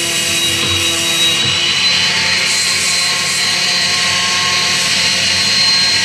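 Electric random orbital sander running against a wooden cutting board, a steady high whine over a constant hum.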